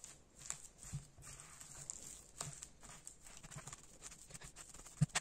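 Silicone spatula mashing and mixing boiled potato in a bowl: faint, irregular soft taps and scrapes against the bowl, with a sharper knock near the end.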